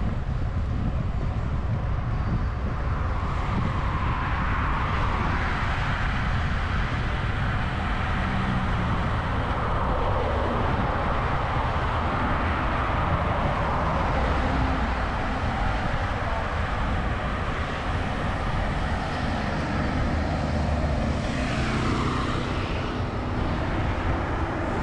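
Steady wind and road noise from riding a road bike among traffic, heaviest as a low rumble. The traffic noise swells briefly near the end.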